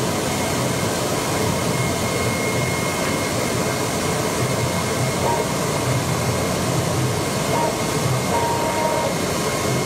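AOKE DCH-series CNC cardboard cutter running, its tool head travelling the gantry while cutting 2 mm E-flute corrugated sheet: a steady machine noise with a thin high whine that comes and goes.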